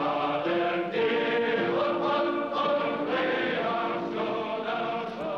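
Music with voices singing together in chorus, holding notes that change every half second or so.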